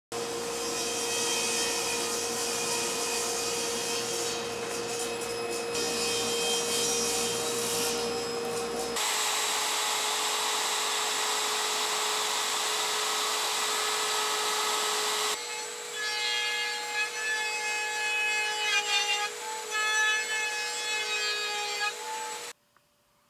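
Handheld router running at speed with a steady high whine while cutting half-blind dovetails in drawer stock along a dovetail jig. In the last several seconds the level and pitch waver as the bit bites into the wood, and the sound stops abruptly near the end.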